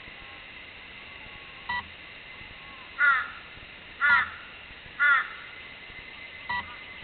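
A crow cawing three times, about a second apart; these are the loudest sounds. Short electronic beeps come twice, once early and once near the end, over a faint steady high tone.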